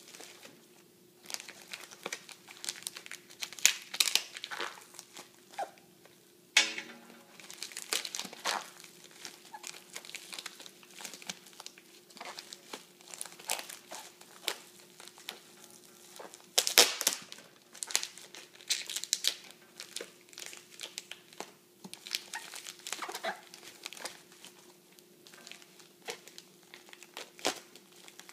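Plastic shipping mailer crinkling and crackling in irregular bursts as it is handled and cut into with a small blade, with a few sharper tearing and scraping sounds.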